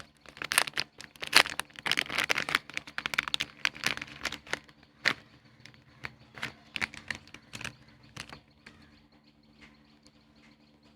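Crinkling and rustling of accessory packaging being handled and unwrapped, in quick clicks and crackles that are busiest for the first five seconds, then thin out to occasional clicks.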